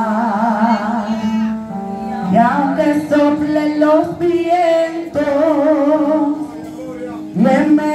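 A woman singing a worship song into a microphone, with vibrato on long held notes, over a steady sustained instrumental backing.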